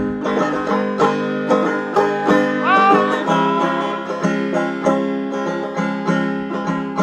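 A banjo picked in quick rolling notes, an instrumental passage of a folk song, with one held note that bends and wavers about three seconds in.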